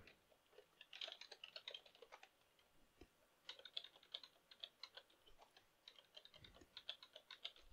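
Faint computer keyboard typing in three short bursts of key clicks: a terminal command, then a new password typed twice.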